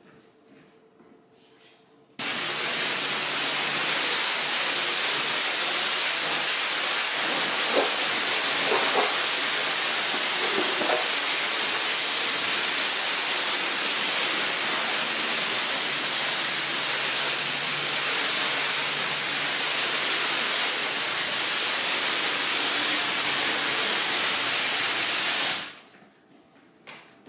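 High-pressure water spray hissing steadily on a carpet, starting abruptly a couple of seconds in and cutting off shortly before the end.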